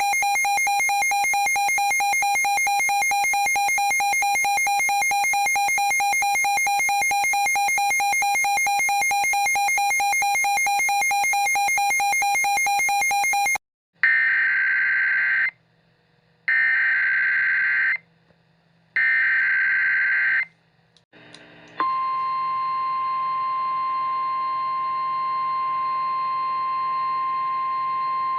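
A harsh, buzzing electronic alert tone for about fourteen seconds. Then three short bursts of warbling SAME digital header data, about a second apart. About 22 seconds in, the steady single-pitch NOAA Weather Radio warning alarm tone begins.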